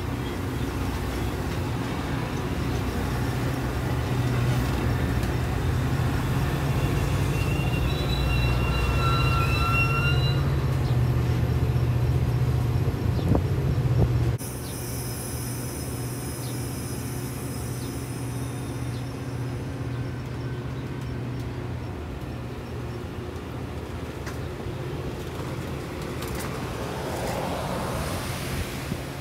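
Metra bi-level commuter train rolling close by: a heavy low rumble of wheels on rail with a brief thin squeal midway. After a sudden cut about 14 s in, it gives way to a steadier, quieter low rumble from the train beside the platform.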